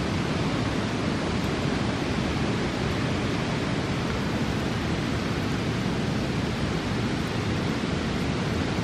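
A steady, even rushing noise with no distinct sounds standing out.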